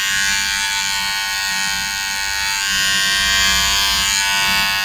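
Small electric pet hair trimmer running steadily as it clips the hair on a Yorkshire terrier's ear.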